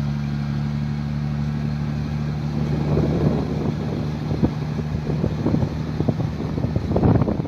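A deep, steady droning tone of several low pitches held together, the unexplained 'strange sound' heard near the Libyan coast, with wind buffeting and crackling on the microphone that grows rougher after a few seconds.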